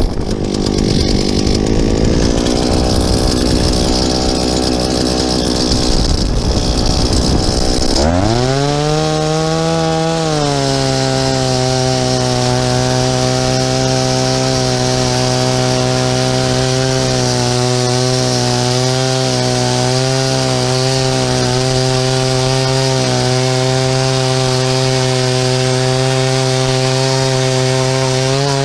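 Eskimo ice auger's engine running low for several seconds, then revved up about eight seconds in and held at a steady high speed.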